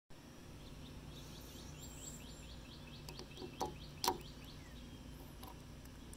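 Two sharp plastic clicks about half a second apart, a little past halfway, as the white centre cap is pried off a 3D-printed fidget spinner. Before them a bird chirps in a quick run of short calls, about five a second, over a steady low background.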